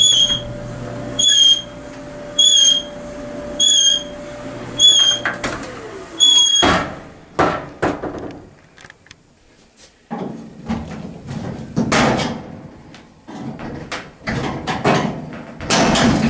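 Frigidaire FDEB23RGS1 clothes dryer running with its motor humming and a sharp squeak about once a second, six squeaks in all, until it stops about five seconds in. The owner suspects a worn idler pulley, or else the drum bearing. Knocks and clatter follow as the dryer's door and top panel are handled.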